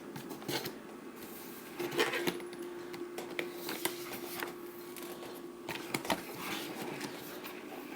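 Unpacking handling noise: scattered light clicks, taps and rustles of packaging and plastic parts being handled, with a faint steady hum through the middle.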